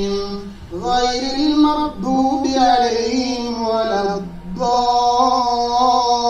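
An imam's voice chanting Quranic recitation in melodic tajweed style, drawing out long held notes that rise and fall in pitch, in several phrases with short breaks between them.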